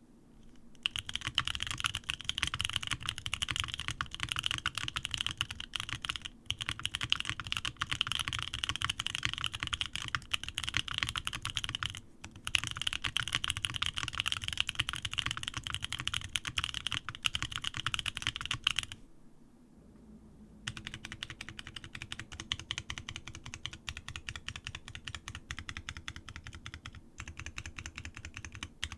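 Fast, continuous typing on a Snake60 60% mechanical keyboard with C³Equalz x TKC Kiwi tactile switches in an O-ring-mounted aluminium plate, under GMK keycaps: a dense patter of keystroke clacks. The typing stops for about two seconds near the 19-second mark, then resumes more quietly.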